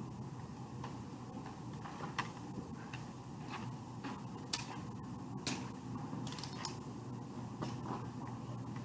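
Nerf blasters being handled and fired: scattered sharp plastic clicks and clacks, roughly one a second, over a low steady hum.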